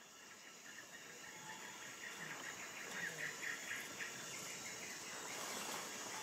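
Rainforest ambience fading in: a steady insect hiss with a rapid, pulsing insect chirp in the middle.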